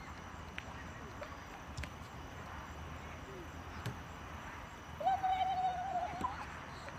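Steady outdoor background noise, with a girl's distant drawn-out yell about five seconds in, held on one pitch for just over a second and rising at the end.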